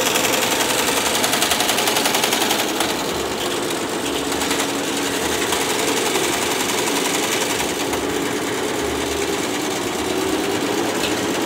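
BAI multi-needle commercial embroidery machine stitching a design into a hooped sweatshirt: a rapid, even needle clatter that runs steadily.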